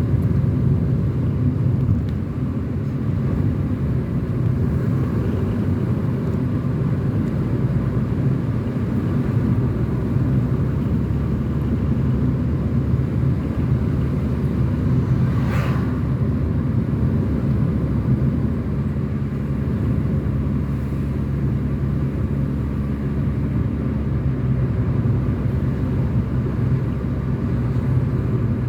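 Steady engine and tyre rumble of a car driving, heard from inside the car, with a short hiss about halfway through.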